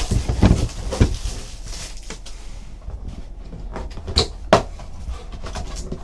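Cardboard trading-card hobby box being opened and its packs handled: rustling and scraping of cardboard and wrappers with dull knocks. There are two sharp taps a little past four seconds in.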